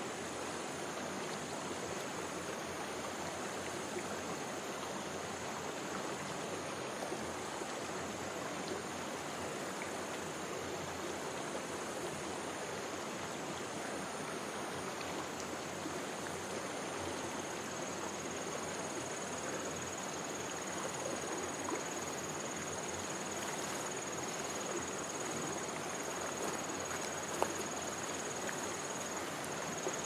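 Steady rushing of a flowing stream, with a thin, high, steady insect drone held over it.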